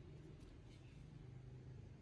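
Near silence: a faint low steady hum with a couple of faint ticks.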